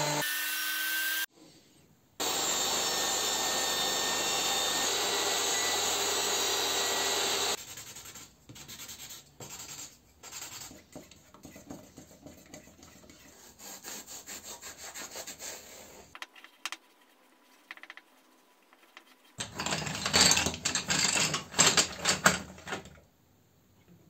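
Workshop sounds in quick cuts: a thickness planer running at the very start, then a power tool running steadily for about five seconds, then soft, irregular brush strokes as paint is worked from a tin. Near the end come about four seconds of fast, loud rubbing strokes on wood.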